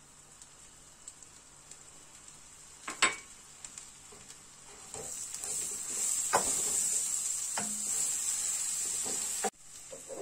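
Toasted barley vermicelli and grated carrots sizzling in butter in a pot while being stirred, with a spoon clicking against the pot a few times. The sizzling gets louder about halfway through and cuts off suddenly near the end.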